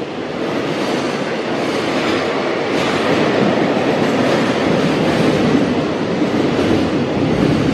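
Container wagons of a freight train rolling past at speed: a steady, loud noise of steel wheels running on the rails.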